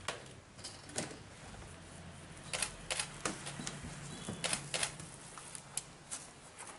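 Craft knife cutting a sheet of balsa wood: a string of sharp, irregular clicks and crackles, thickest in the middle stretch.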